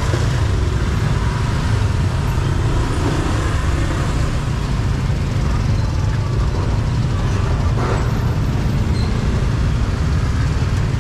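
Street ambience dominated by a steady rumble of road traffic.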